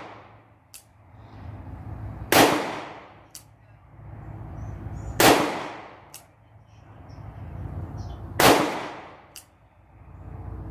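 Three .38 Special shots from a Rock Island Armory M206 revolver, about three seconds apart, each a sharp report with a short ringing echo. A much fainter sharp click follows about a second after each shot.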